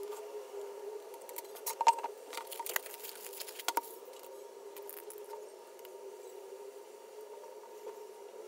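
A run of small, sharp clicks and taps over a steady hum, bunched between about one and a half and four seconds in, the loudest about two seconds in.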